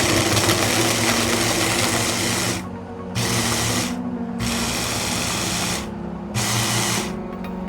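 Philips HR1627 650 W hand blender motor running under load as it chops a hard carrot fine: one long run, then three short pulses with brief pauses between.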